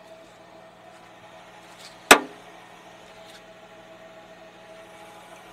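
A single sharp click about two seconds in, the Jeep Wrangler's rear swing gate latch releasing as the gate is opened, over a steady low hum.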